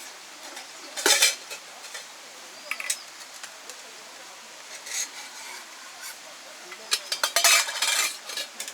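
Dishes and cutlery clattering in short bursts, with a longer run of clinks and scrapes about seven to eight and a half seconds in.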